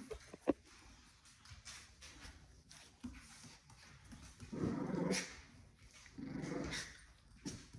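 A sharp knock about half a second in, then a puppy growling twice, each growl under a second long, with small scuffling knocks around it.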